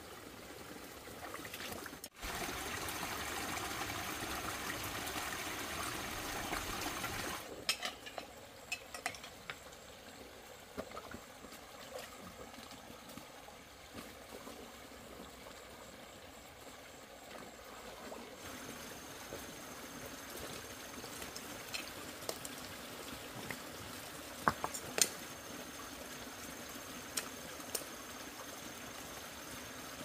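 Running water, louder for about five seconds near the start, then a softer trickle, with scattered sharp clicks and knocks.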